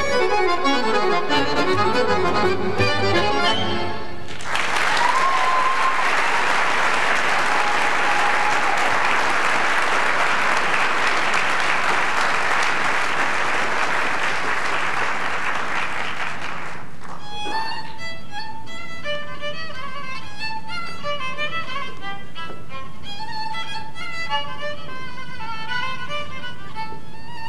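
A folk string ensemble ends a number, and the audience applauds for about twelve seconds. A solo trumpet-violin, a Stroh-type violin with a metal horn, then begins a slow Transylvanian melody in single notes.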